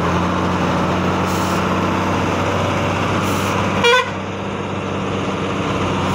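Tata 14-wheeler truck's diesel engine running steadily under load as the truck pulls away through a turn. A short horn toot about four seconds in.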